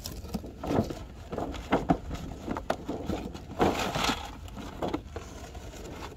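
A toy's cardboard gift box being opened by hand: irregular rustling and crackling of packaging, with a few sharp knocks and a denser burst of rustling about four seconds in.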